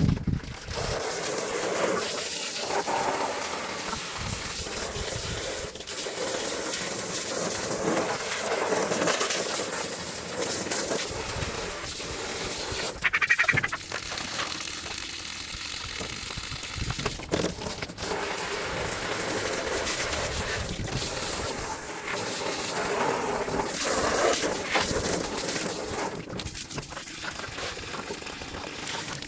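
Water running and splashing steadily into a container as it is rinsed out and refilled.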